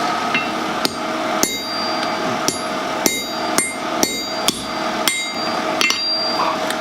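Hand hammer striking a punch held on a steel bar over an anvil, about ten ringing blows roughly two a second, driving a hole partway through the metal. A steady hum runs underneath.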